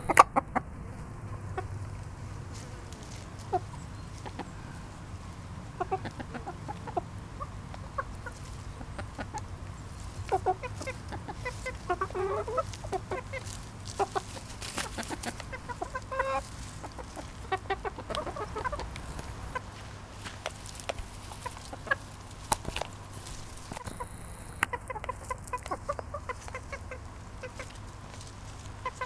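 Hens pecking food from a plastic bowl: many sharp beak taps on the plastic, with soft clucking now and then, most of it around the middle.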